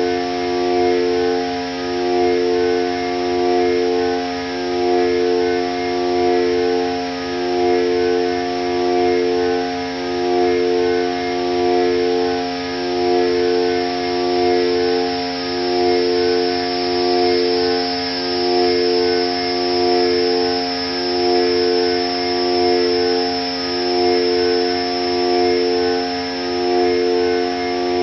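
Ambient electronic drone from a Korg Volca Modular synthesizer playing FM tones. A dense chord of sustained tones runs under a bright high tone, while two mid-pitched notes take turns about every two seconds, each change bringing a slow swell in loudness.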